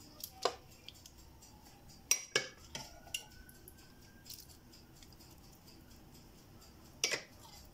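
A plastic spoon clicking and knocking against a dish and foil tray as thin tomato sauce is scooped and spooned over pasta nests: one click about half a second in, a cluster of four around two to three seconds, and another near the end.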